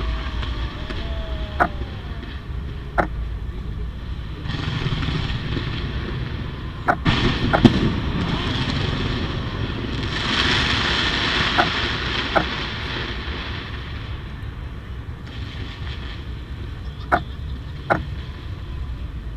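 Continuous rumble and crackle of a large fireworks display, swelling in the middle. Sharp camera shutter clicks sound over it, several in pairs less than a second apart.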